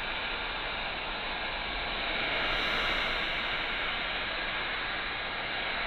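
Heat gun blowing steadily, a constant rushing hiss that swells a little about two seconds in, warming a hard old motorcycle tyre to soften the rubber for mounting.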